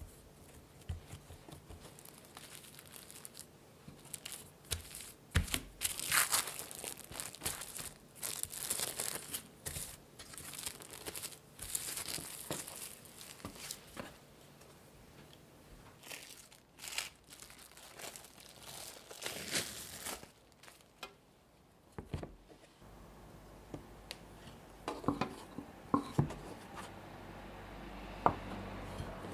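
Plastic cling film crinkling and rustling as folded pie dough is wrapped in it for chilling. Near the end, a few sharp knocks of dough and knife on a wooden board.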